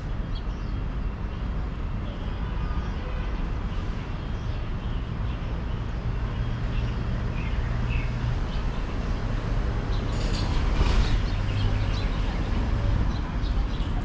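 Outdoor city ambience: a steady rumble of traffic, with a few short bird chirps and a brief louder rush about ten seconds in.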